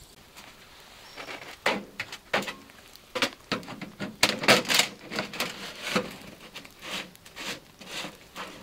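A rolled titanium stovepipe being handled and fitted onto a small wood stove's pipe collar: a run of irregular light knocks, taps and scrapes of thin metal.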